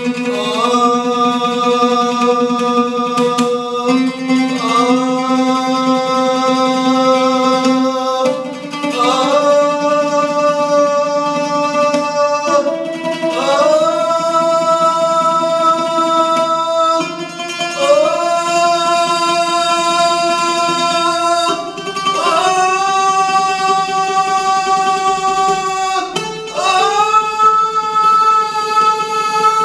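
A man singing a vocal range exercise: about seven long sustained notes of roughly four seconds each, stepping up in pitch, each sliding up into its note. An instrument sounds the same pitches underneath.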